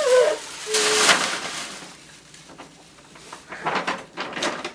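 Wrapping paper tearing and crinkling as presents are unwrapped: a loud rip about a second in, then lighter crackly rustling near the end.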